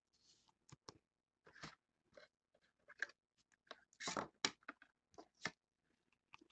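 2015 Panini Contenders baseball cards being handled and flipped by hand, with faint, irregular rustles and soft clicks of card stock and plastic that come loudest about four seconds in.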